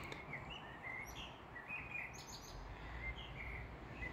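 Eurasian blackbird singing: a faint run of short, fluty phrases with brief pauses between them, over a low, steady background rumble.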